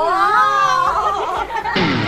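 Background pop music with a voice over it; a fuller beat comes in near the end.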